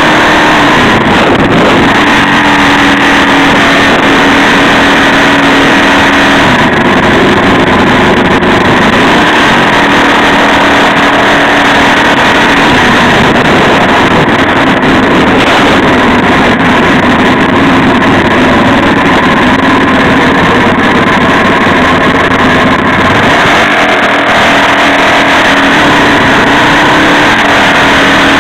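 Mini bike engines running steadily at cruising speed, heard loud and close from on board, with a dense rushing noise over the engine drone. The drone's pitch shifts a little a few times as the throttle changes, with no stops.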